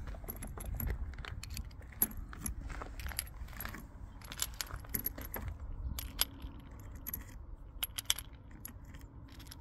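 Brass revolver cartridges being pushed by hand one by one into an aluminum speedloader: light, irregular metallic clicks and clinks as the cases tap the loader and each other.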